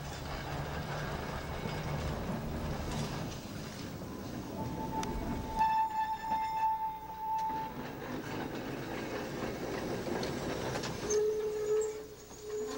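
Philadelphia Nearside streetcar 6618 rolling past on curved track, with a steady rumble of wheels and motors. A high steady wheel squeal lasts about three seconds in the middle, and a lower squeal comes near the end.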